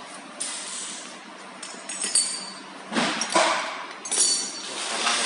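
Irregular metallic clinks and knocks from metal machine parts being handled, about five in a few seconds, two of them ringing briefly.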